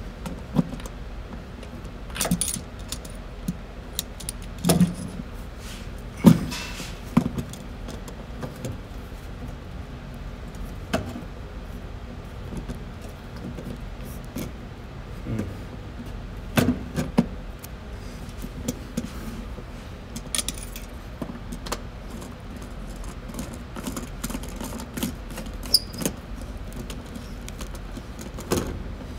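Hand socket driver clicking and clinking against a car's power antenna mounting nut as the nut is fitted and turned in the quarter panel: irregular sharp metallic clicks, a few seconds apart, over a steady low hum.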